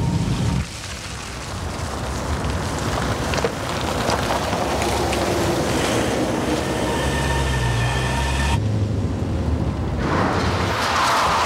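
Vehicle noise: a rumble of passing traffic, with a large vehicle's low, steady hum that cuts off abruptly about three-quarters of the way through, followed by another burst of vehicle noise near the end.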